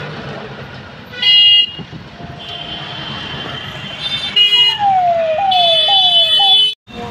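Vehicle horns honking in stopped street traffic: a loud blast about a second in, a longer steady honk through the middle, and a long loud honk near the end. Over the last part, a siren-like tone falls in pitch again and again in short repeating sweeps.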